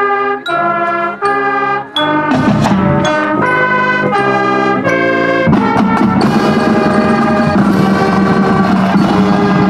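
Brass band music: a string of short, separate notes, then from about two seconds in, louder, long, full held chords.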